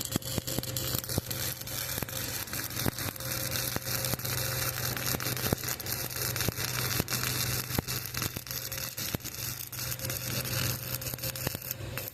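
Electric arc welding: the arc crackles and sputters continuously, over a steady low hum.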